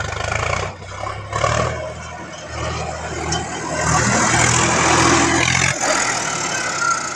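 Sonalika Sikander tractor's diesel engine running under load while pulling a rotavator that churns through dry soil, a steady low drone under a harsh, noisy clatter. The low engine tone drops away about six seconds in.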